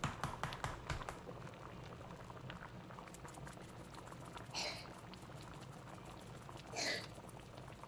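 A big pot of stew peas boiling on the stove, bubbling and popping steadily, the pops quicker in the first second or so. Twice, at about four and a half and seven seconds in, seasoning is shaken out of a bottle over the pot in a brief rattle.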